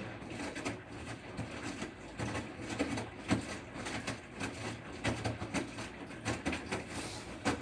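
Bosch Serie 6 washing machine running, its drum turning with many irregular clicks and knocks over a steady low hum.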